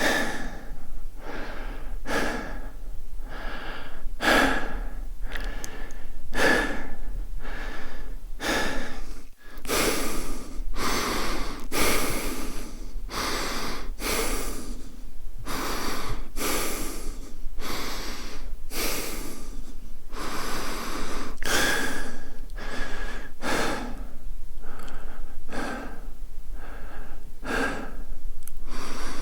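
A man breathing fast in short, repeated breaths, about two a second. After a brief gap about nine seconds in, the breaths run slightly longer.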